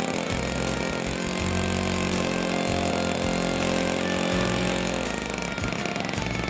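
A 40cc MVVS two-stroke petrol engine in a large RC model plane runs on the ground with its propeller spinning, in a ground run before flight. It runs a little harder, then eases back about five seconds in.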